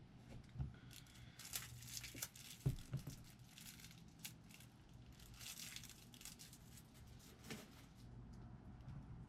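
Faint rustling and crinkling handling noise in two spells, with a few light knocks and clicks, over a low steady hum.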